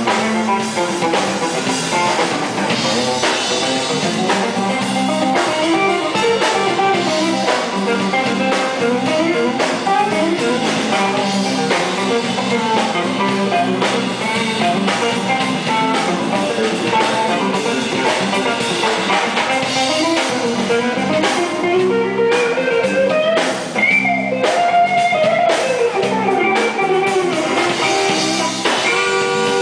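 Live blues-rock band playing: a Telecaster-style electric guitar plays a melodic lead with bent notes over a drum kit, with no singing.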